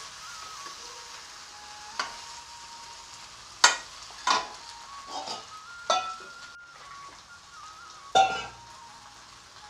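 Fish head in spice paste sizzling in a metal kadai while it is stirred and scraped with a wooden spatula. Several sharp clanks of spatula against pan, the loudest about three and a half and eight seconds in.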